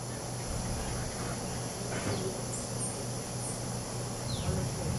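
Tropical forest ambience: a steady high-pitched insect drone, with a couple of short falling whistles about two seconds apart and a low hum underneath.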